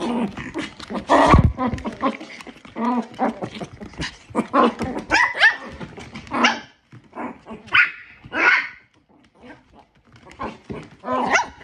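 Chihuahuas and a poodle barking in play right beside the microphone, in many short irregular barks, with a heavy thump a little over a second in and a brief lull near the end.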